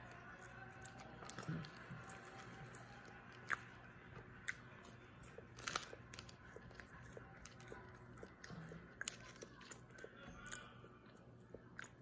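Faint chewing of a crunchy nut bar, with scattered small crunches and mouth clicks over a low steady room hum.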